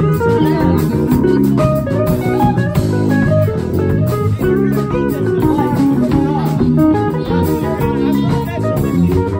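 A live instrumental trio: a semi-hollow electric guitar plays a melodic line of quick changing notes over electric bass and a drum kit.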